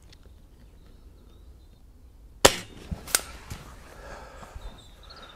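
Diana 240 spring-piston air rifle firing one shot, a sharp crack about two and a half seconds in, followed about half a second later by a second, quieter crack and a few small clicks.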